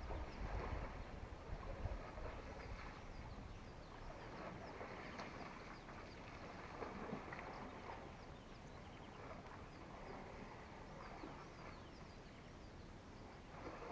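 Outdoor bush ambience of many small birds chirping and twittering at a distance, over a steady faint hiss. A low rumble, like wind on the microphone, runs through the first two seconds.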